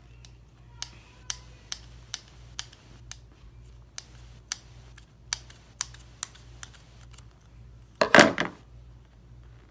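Scissors cutting through a soft foam squishy toy, a series of sharp snips about two a second. Near the end comes a single louder clatter.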